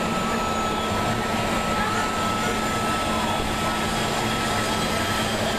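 Steady rushing noise with a constant low hum and a thin high whine running through it, even in level throughout.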